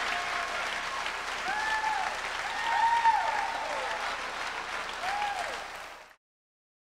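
Audience applauding, with several high cheers that rise and fall in pitch, cutting off abruptly about six seconds in.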